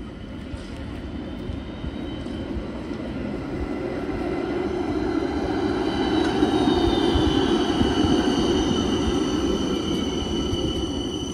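Helsinki Transtech Artic low-floor tram rolling past on street rails. The rumble swells as it comes close and fades as it goes by, with a high whine that slides down in pitch about halfway through.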